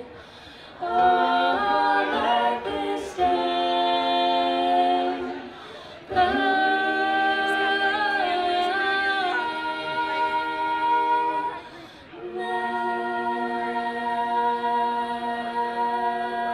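Several voices, led by women, singing a cappella in close harmony: long held chords in three phrases, each ending in a short pause.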